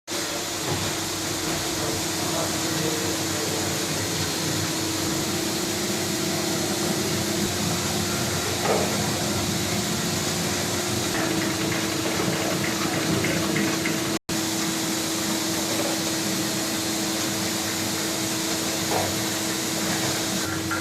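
Two-layer rotary tablet press running steadily as it presses dishwasher tablets: an even mechanical noise with a constant hum, and a brief gap in the sound about two-thirds of the way through.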